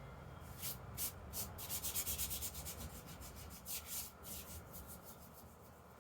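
Faint irregular rubbing strokes, a quick run of swishes bunched around two seconds in and a few more about four seconds in, over a low steady hum.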